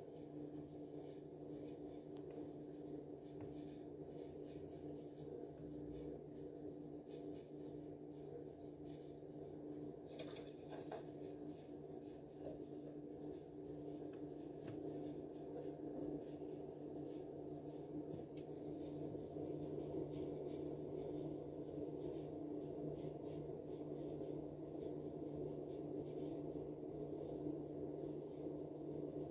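Steady low hum of room tone with faint scattered ticks, and a short clatter about ten seconds in.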